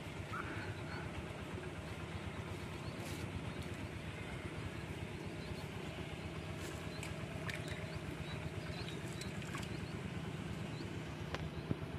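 A steady low motor drone, with a few faint sharp clicks and small high chirps over it.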